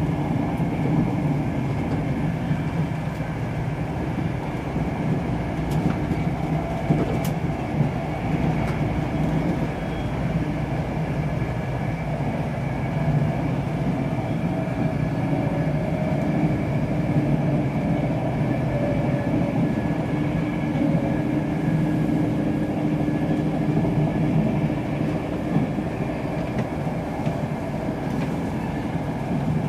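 Interior running noise of an InterCity 225 Mark 4 coach at speed: a steady rumble of wheels on rail with a faint, steady high whine. A couple of sharp clicks come about six to seven seconds in.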